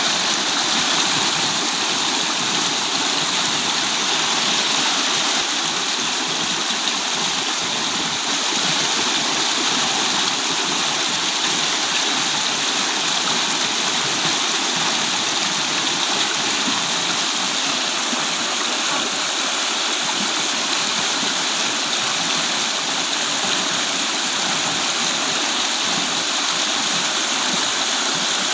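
Rainwater stream running fast, a steady, unbroken rush of water.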